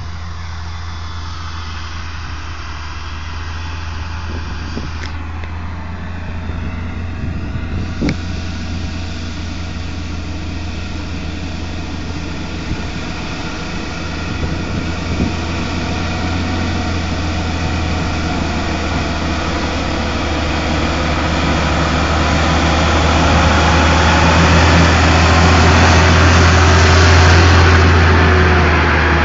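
Volvo FH16 610 heavy-haul truck's 16-litre straight-six diesel pulling a 120-tonne load uphill, a steady low drone under heavy load. It grows louder over the last several seconds, peaking near the end.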